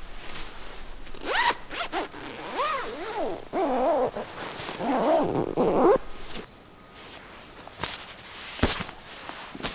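A zipper being pulled in several quick strokes, its pitch sweeping up and down with each pull. Near the end there are two short, sharp knocks.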